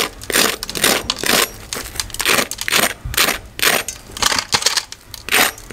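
A metal fork scraping and tapping across the crisp breadcrumb crust of a fried chicken patty, a dry, crunchy scratch repeated about two or three times a second. It shows how crisp the coating is.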